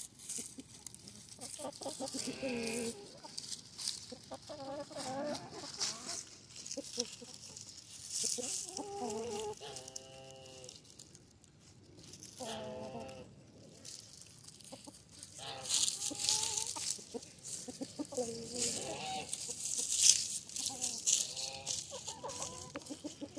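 A small flock of chickens clucking close by in short, repeated calls every couple of seconds. Dry leaves crackle and rustle as the birds forage in the leaf litter.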